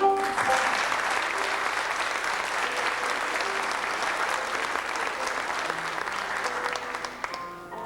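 Audience applauding, starting suddenly and dying away near the end, over soft piano music.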